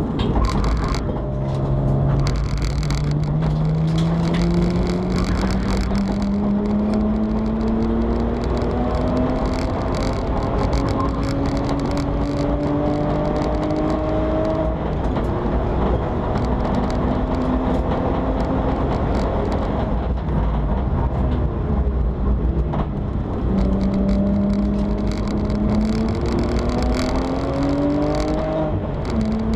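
BMW 325i E90 race car's straight-six engine, heard from inside the stripped, roll-caged cabin under load on track. The revs climb slowly through the first half, sit lower in the middle, then rise again with a quick drop near the end as it changes up, over steady road and wind noise.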